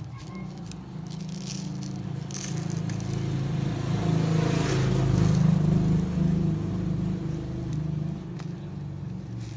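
Plastic shrink-wrap on a cup-noodle container crinkling and rustling as the cup is turned in the hand. Under it runs a steady low rumble that swells to its loudest around the middle and then eases off.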